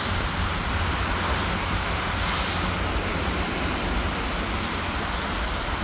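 Steady rushing noise of a landing Airbus A340's jet engines heard from afar as it rolls out on a wet runway, over a low rumble of wind on the microphone.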